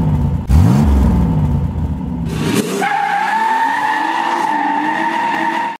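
A car engine revving, its pitch rising and falling, then the tyres squealing in one long steady screech for about three seconds that cuts off suddenly.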